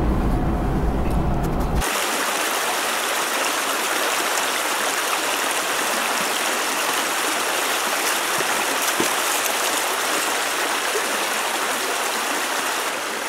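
A steady rush of a small rocky stream running through a shallow riffle. For the first two seconds a low vehicle-cabin rumble with camera handling is heard instead, cut off sharply when the stream begins.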